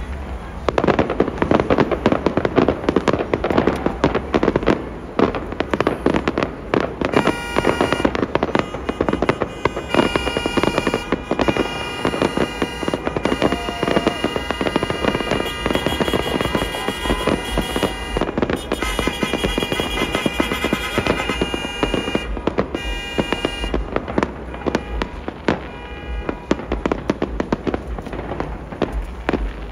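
Aerial fireworks display in a continuous barrage, with rapid overlapping bangs and crackling that hardly let up. A steady pitched drone joins from about seven seconds in and drops away a little past twenty seconds.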